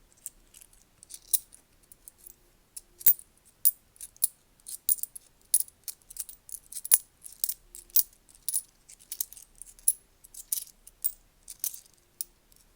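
British 10p coins clinking against one another as they are sorted through by hand: an irregular run of sharp clinks, several a second, a few of them louder.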